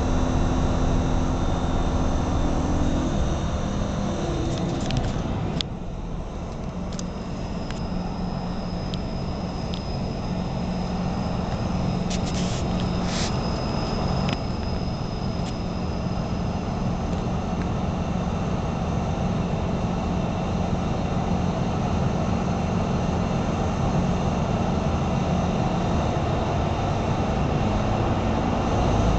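A passenger train in motion, heard from inside the carriage: a steady rumble of wheels and running gear under a low engine drone. A thin high squeal runs through much of the first half, with a few sharp clicks.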